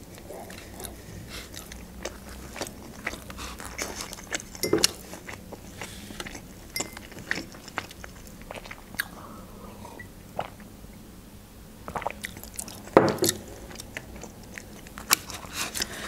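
Close-miked chewing of a shawarma wrap, with wet mouth clicks and soft crunches at an uneven pace. A single louder knock comes about three-quarters of the way through.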